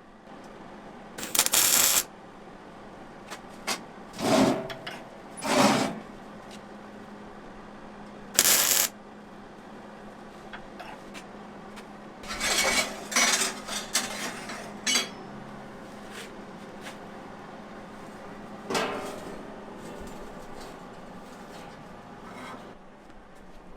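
Intermittent metalwork on a steel stove body: a string of short metallic clanks and rasps, each under a second, over a steady low hum.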